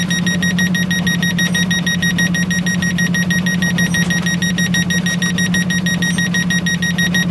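Royal RFA-40 flasher echo sounder's depth alarm beeping rapidly and continuously over a steady low hum. The depth is under the alarm's 10 m setting, so it is warning of shallow water.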